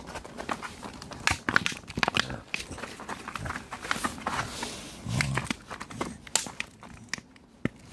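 Irregular crinkling and clicking noises, with a short low grunt about five seconds in.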